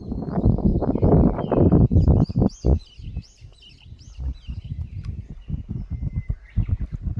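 Wind buffeting the microphone in gusts, heaviest in the first few seconds, while birds chirp and sing over it with quick rising-and-falling high notes.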